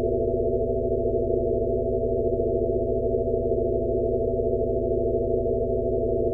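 Steady synthesized drone of several low held tones layered together, nothing above about 800 Hz and unchanging in level: a Rife-frequency sound-therapy tone for tinnitus relief.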